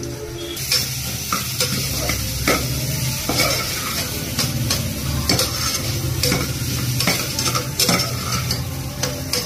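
A steel spoon scraping and knocking against the inside of a pressure cooker as spiced peas and potatoes are stirred, with irregular strokes about once a second over the steady sizzle of the food frying in oil.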